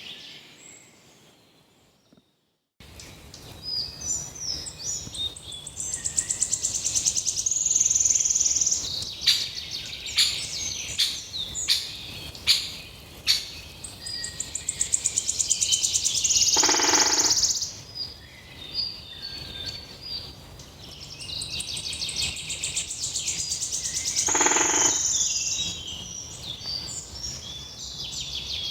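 Songbirds singing and calling, with fast high trills and sharp chips. The sound fades out and breaks off about two seconds in, then starts again.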